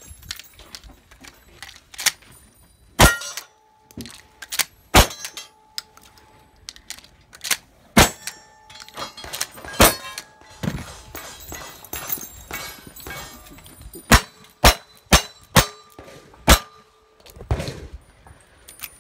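Gunfire on a cowboy action shooting stage: several spaced shotgun blasts over the first half, then a quick string of about five revolver shots a little past the middle. Steel targets ring with a steady tone after some of the hits.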